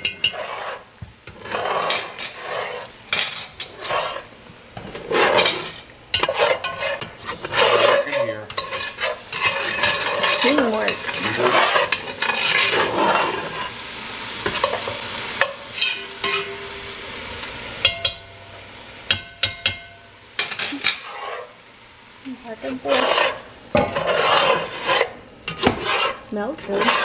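A metal spoon stirs and scrapes diced onions, bell peppers and garlic around a cast-iron pot in irregular strokes, over a steady sizzle as the vegetables sauté.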